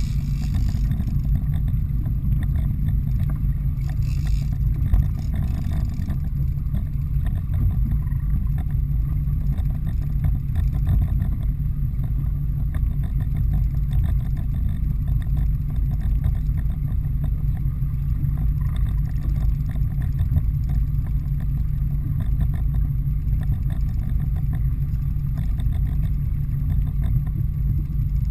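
Steady low rumble of the fishing boat's engine running.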